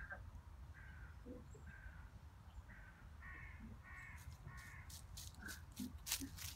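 A bird calling over and over in woodland, a string of short calls about two a second, followed about four seconds in by the crisp rustling and crunching of dry fallen leaves as a red fox steps through them close by.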